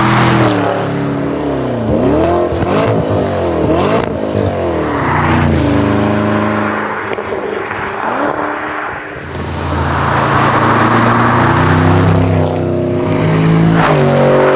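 Modified Porsche Panamera Turbo S twin-turbo V8 running loud, its revs swinging sharply up and down several times a couple of seconds in, then dropping back and pulling up again.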